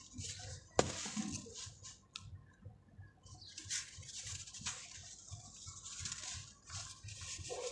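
Chunks of dry packed sand crumbled by hand, grains and small lumps falling and pattering onto a dry, sandy floor in a run of gritty, hissing bursts. One sharp crack about a second in.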